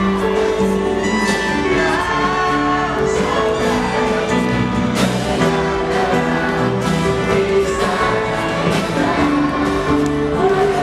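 Contemporary worship song playing, here a stretch of held notes with no clear lyrics.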